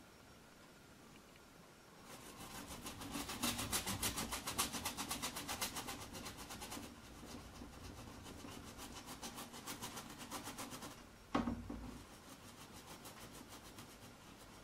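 Paintbrush scrubbing paint onto a stretched canvas in quick back-and-forth strokes, a rhythmic rasp that starts about two seconds in and eases off after several seconds. A single sharp knock comes about three-quarters of the way through, followed by lighter strokes.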